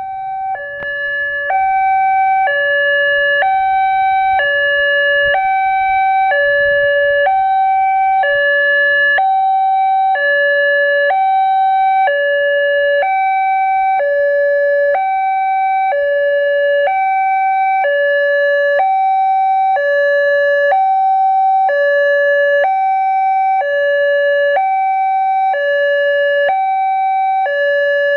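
Railway level-crossing warning siren sounding a steady two-tone hi-lo alarm, a higher and a lower tone alternating about every 0.6 s without a break. A faint low rumble underneath dies away in the first ten seconds or so.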